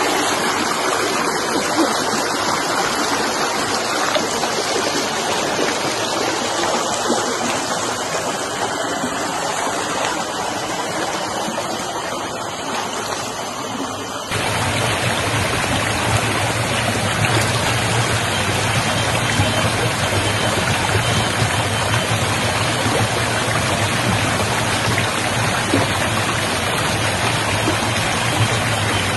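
Stream water rushing steadily. About halfway through the sound changes abruptly and becomes deeper and fuller.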